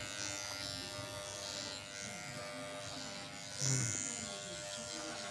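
Corded electric hair clippers buzzing steadily as they shear a man's hair down short. A brief louder sound with a falling pitch comes about three and a half seconds in.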